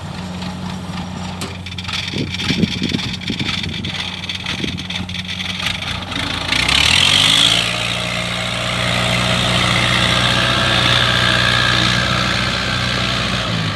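Engine of a tracked rice-sack carrier running steadily at low speed, with a few knocks about two seconds in. About six seconds in it revs up with a rising pitch and holds the higher speed as the loaded carrier pulls away.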